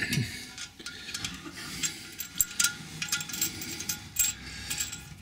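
Small metal wing nut and flat washer clicking and scraping as they are threaded by hand onto a toilet tank bolt: a string of small, irregular clicks.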